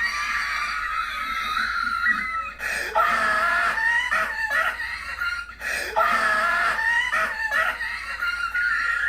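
High-pitched, wavering screaming voice in several long stretches with short breaks.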